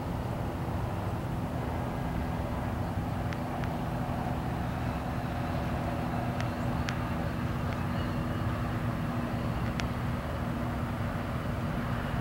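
Steady low rumble of road traffic with a faint steady hum, and a few faint sharp ticks scattered through it.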